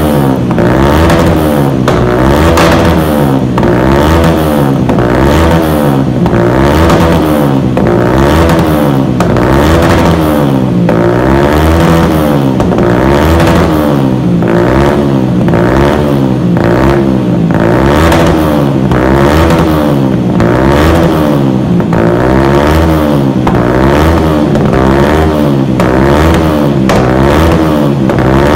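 Yamaha YZF-R125's 125 cc single-cylinder four-stroke engine revving over and over through a modified Dominator aftermarket exhaust, the pitch climbing and dropping every second or two without a break.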